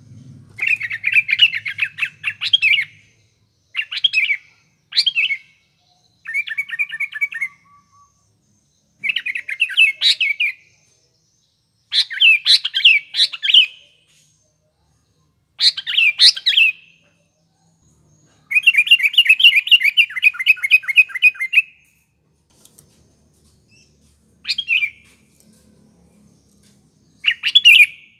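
Sooty-headed bulbul (kutilang) singing: short bursts of quick, warbling chattering notes every two to three seconds, with one longer run of rapid notes about two-thirds of the way through.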